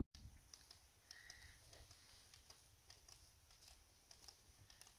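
Near silence, with faint scattered soft ticks.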